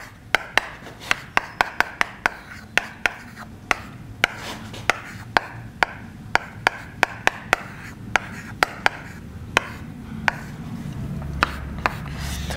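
Chalk writing on a blackboard: sharp, irregular taps as the chalk strikes the slate, about three a second, between faint scratching strokes.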